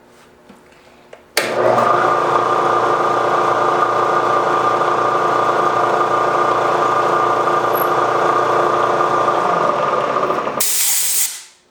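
Milling machine running at a steady pitch, starting abruptly about a second in and holding for about nine seconds, ending in a short burst of hiss that dies away.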